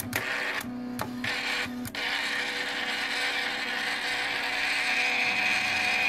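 The carriage motor and drive of an inkjet printer rebuilt as a pen plotter, moving the pen head: a few short start-stop moves, then a steady whirring run of about four seconds that stops abruptly.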